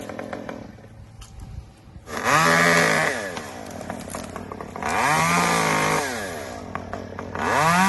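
Two-stroke chainsaw revved from idle to full throttle in three bursts, each held for about a second before dropping back to idle: the saw making cuts in willow brush.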